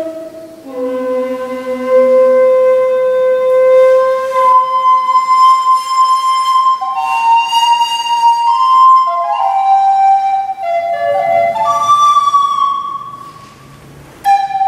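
Solo recorder playing long held notes, moving to new pitches in several steps midway, then dropping away briefly before a new note starts near the end.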